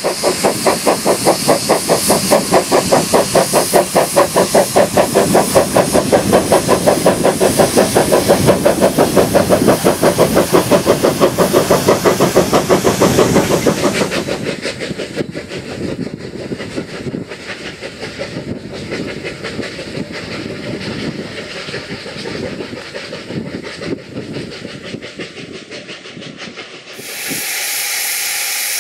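Saddle-tank steam locomotive working hard with a train of loaded coal wagons, its exhaust beating loudly at about four beats a second. About halfway through the beats give way to the quieter rumble and clicking of the wagons rolling over the rail joints. Near the end comes a steady hiss of steam from a small Kerr Stuart 0-4-0 well tank locomotive.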